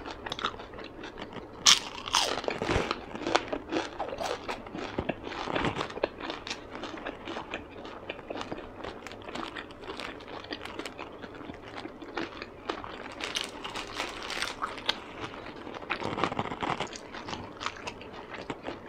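Close-up crunching and chewing of a deep-fried Vietnamese spring roll (chả giò), with irregular crisp crackles and the sharpest crunch at the first bite near the start.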